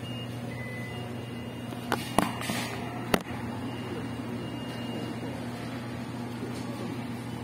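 A few sharp clicks over a steady low hum, the loudest about two seconds in and again about three seconds in.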